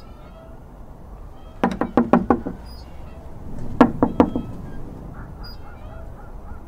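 Knuckles knocking on a wooden door: a run of about five knocks, then after a short pause about three more.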